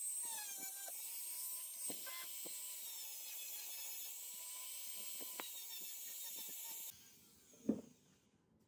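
Handheld rotary tool spinning a polishing wheel against a sunglasses lens: a steady high whine and hiss that cuts out about seven seconds in, followed by a single knock.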